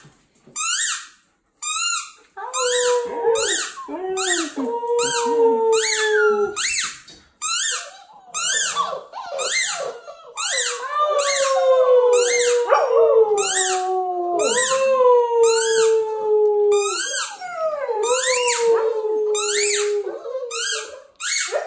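Husky puppies howling together: a quick run of short, high, squeaky yelps, about two a second, with longer howls that slide slowly down in pitch joining in a couple of seconds in.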